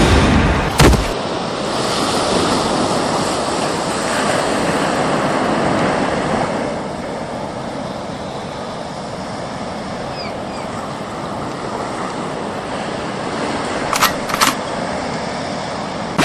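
Sea surf breaking and washing on a sandy beach, a steady rushing hiss. A loud thump comes about a second in and two short knocks near the end.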